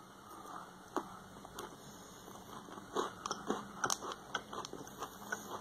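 Crackling of a small strawberry KitKat wrapper being twisted and handled in the fingers, mixed with crunchy chewing. The crackles come in scattered short bursts and grow busier from about halfway through.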